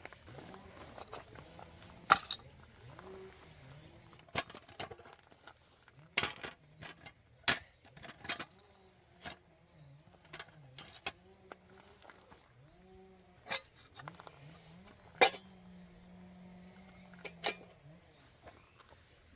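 Scattered sharp clinks and knocks of small hard objects, such as camp cookware or utensils, being handled, with a faint low hum underneath.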